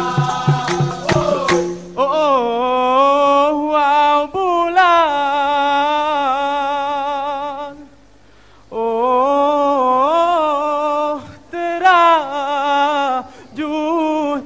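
Dikir barat group: rattling percussion with voices for the first two seconds. Then a solo singer carries a long, wavering, melismatic vocal line with little accompaniment, breaks off briefly about eight seconds in, and sings on.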